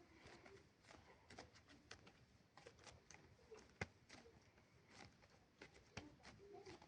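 Faint, irregular sticky clicks and small pops of slime being squeezed and handled, with one sharper click near the middle.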